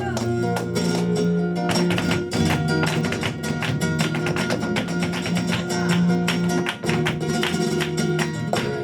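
Live flamenco fandango: acoustic guitar playing over a fast run of sharp percussive strikes.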